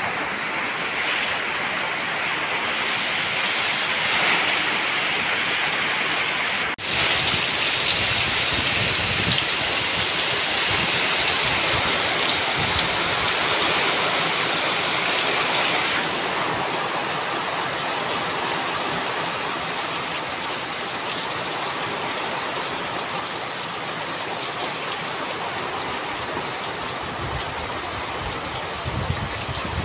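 Heavy typhoon rain pouring down with gusting wind: a steady, dense hiss, with low gusty rumbles of wind on the microphone now and then.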